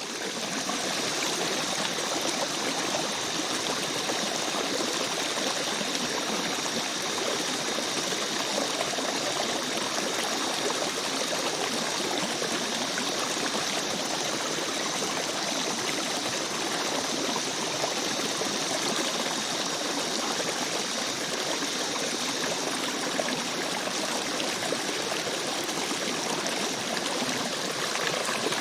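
A river stream flowing, a steady, unbroken rush and trickle of water.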